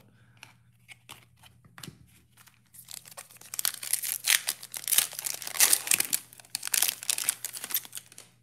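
A few soft clicks of trading cards being handled, then an Absolute football card pack's wrapper crinkling and tearing as it is ripped open, for about five seconds from around three seconds in.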